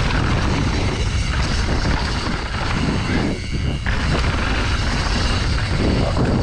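Mountain bike descending a dirt trail at speed, heard through an action camera's microphone: steady wind rush over the mic, with tyres rolling and crunching over loose dirt and stones and the bike rattling over the bumps.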